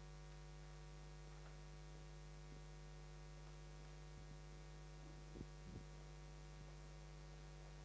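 Near silence with a steady low electrical hum, and two faint knocks about five and a half seconds in.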